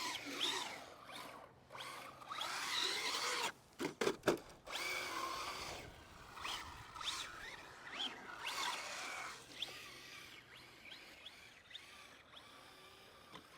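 Electric motor of a Traxxas Slash RC truck whining, its pitch rising and falling as the throttle is worked, with a few sharp knocks about four seconds in. The sound grows fainter in the second half.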